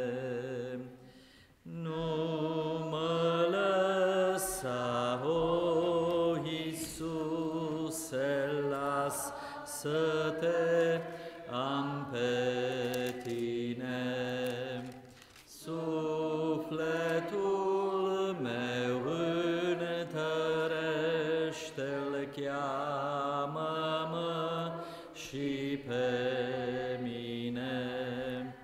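Slow hymn sung in Romanian, with long held notes that waver in pitch. The lines are separated by short breaths, with brief pauses about a second in and again around the middle.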